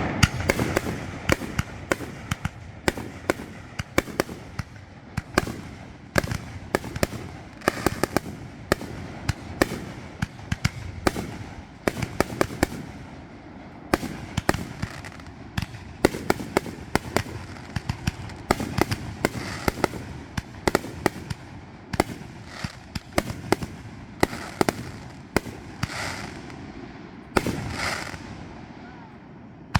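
Fireworks going off in an irregular barrage of sharp bangs, at times several a second, with a short lull near the end.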